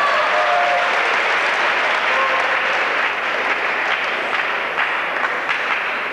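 Large crowd applauding in a sports hall, thinning toward the end so that scattered single claps stand out.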